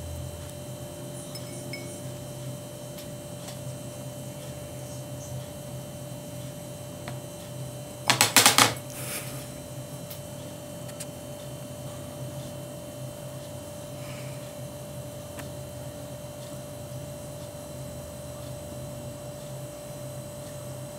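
Steady electrical hum in a small room, with a brief rapid clatter of several sharp clicks about eight seconds in, the loudest sound here.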